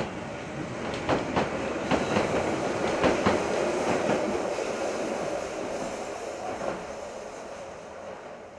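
Two-car Keihan 600 series tram in express livery running past, its wheels clicking over rail joints under a steady rumble. The sound is loudest about three seconds in, then fades away as the tram leaves.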